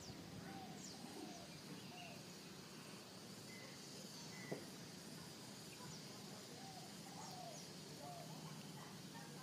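Faint outdoor ambience with scattered short bird chirps and a faint steady high insect-like tone; a single sharp click about four and a half seconds in is the loudest sound.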